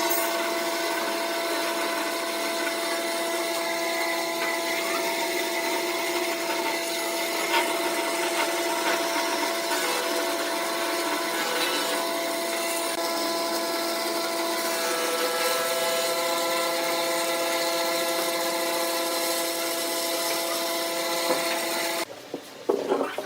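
Wood lathe running with a tool cutting the spinning wood: a steady motor hum under a continuous scraping hiss, which cuts off suddenly near the end.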